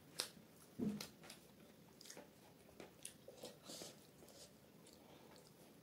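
Soft close-up eating sounds: chewing and wet mouth smacks while a multigrain paratha is torn by hand. A few short clicks and smacks, the loudest about a second in.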